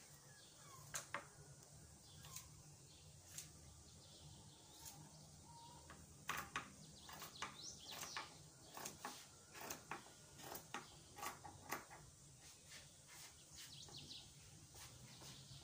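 Faint chirping of small birds: a few single chirps, then a quicker run of chirps in the middle, over a low steady hum.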